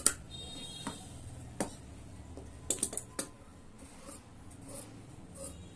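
Large tailor's shears snipping through cotton fabric, giving sharp metallic clicks of the blades: a loud one at the start, a few single ones, then a quick run of four snips about three seconds in.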